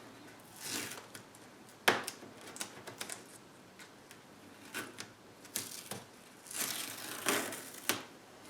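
Scattered short rustles and light clicks of hands handling the workpiece on the bench. The loudest is a sharp click about two seconds in, with a longer rustle near the end.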